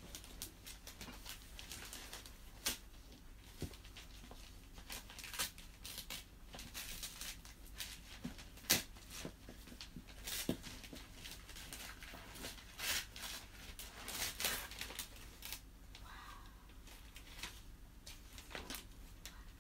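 Gift wrapping paper being picked at, peeled from its tape and torn open, in scattered short crinkles and rips.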